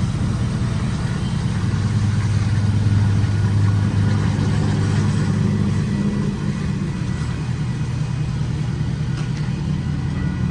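Pickup truck engine idling steadily, a little stronger for the first six seconds and then settling slightly lower.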